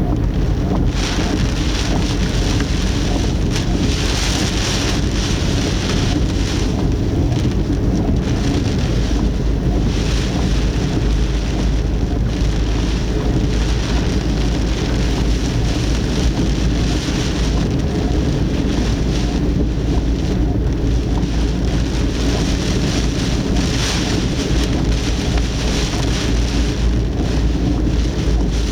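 Typhoon wind and heavy rain beating on a car, picked up by its dashcam inside the cabin. There is a constant deep buffeting rumble, and the hiss of rain swells and eases with the gusts.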